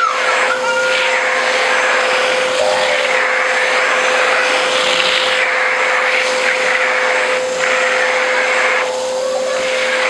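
Vacuum cleaner running steadily with a constant whine, air rushing through the hose nozzle as it is drawn through a child's long hair. The rush thins briefly near the end.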